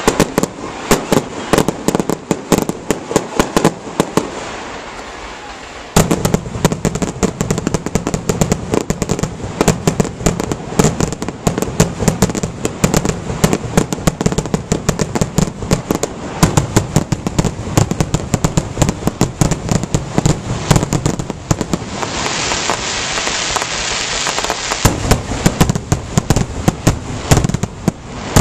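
Aerial fireworks going off in rapid succession, a dense run of sharp bangs and crackles. A short lull about four seconds in ends with a loud bang as the barrage resumes, and there is a stretch of dense crackling hiss near the end.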